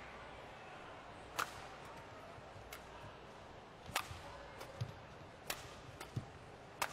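Badminton rally: a series of sharp cracks of rackets striking the shuttlecock, about seven in all and roughly a second apart, with a few dull thuds of players' feet landing on the court between them.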